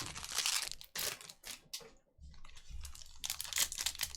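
Trading cards being handled and flipped through: quick papery clicks and slides of card stock against card stock, pausing briefly about two seconds in and then picking up again.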